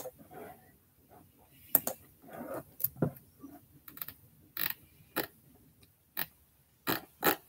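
Computer keyboard clicks: a dozen or so single keystrokes at irregular intervals, with quiet between them.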